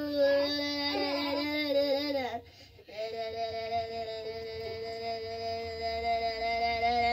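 A voice singing two long held notes: the first breaks off a little over two seconds in, and after a short pause a slightly lower note is held to the end.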